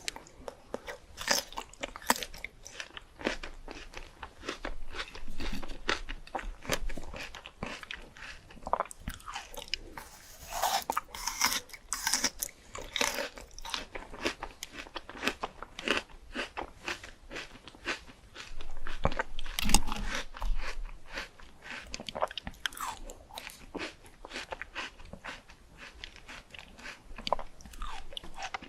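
A person biting into and chewing fruit: a dense run of short, sharp mouth clicks, with louder bouts about ten seconds in and again around twenty seconds.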